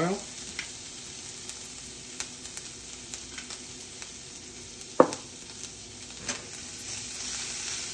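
Minced garlic and ginger sizzling in sesame oil in a frying pan, a steady hiss with a few light ticks. One sharp knock about five seconds in.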